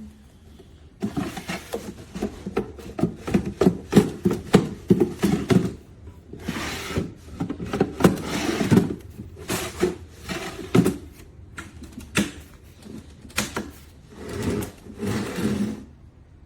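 Wooden drawers of an end table being yanked open and shoved shut again and again: clattering knocks with scraping slides in between, as the drawers stick and run wonky instead of sliding smoothly.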